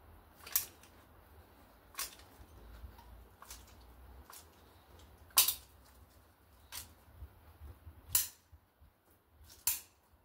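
Manual cartridge gun clicking as its trigger is squeezed, forcing resin out of the tube into a mortar joint: a run of sharp, irregularly spaced clicks, about five loud ones with fainter ones between.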